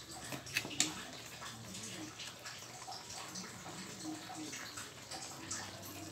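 Soy-sauce pork steak sauce simmering in a wok while a metal ladle stirs and scoops through it, with two sharp clinks of the ladle against the pan a little under a second in.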